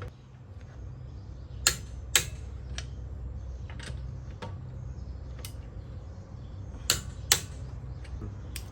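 Click-type torque wrench clicking as the wheel's lug nuts reach the set torque: two pairs of sharp clicks about half a second apart, with fainter ticks between, over a steady low hum.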